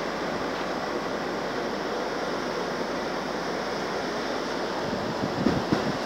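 Steady rush of wind and water, with a few low gusts buffeting the microphone near the end.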